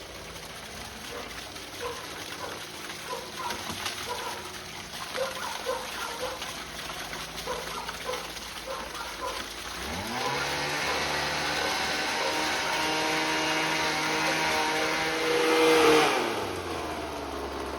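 Short repeated chirps, about two a second, for the first half. Then a motor spins up with a quickly rising pitch about ten seconds in, runs steadily, swells briefly louder near the end, and winds down.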